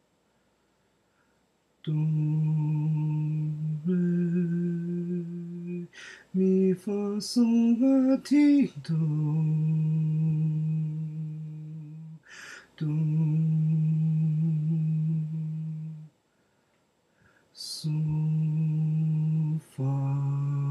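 A man's low voice sight-singing a slow melody in long held notes, starting about two seconds in, with a quick run of rising notes in the middle. Audible breaths fall in the short gaps between phrases.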